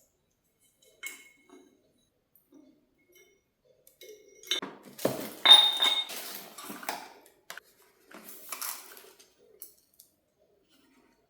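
Crockery being handled: light knocks and clinks, busiest in the middle, with one short ringing clink about five and a half seconds in.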